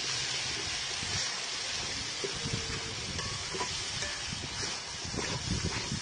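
Steady sizzling of onions frying in hot oil in a large aluminium pot as ginger garlic paste is added, with a few scrapes of a metal spatula stirring near the end.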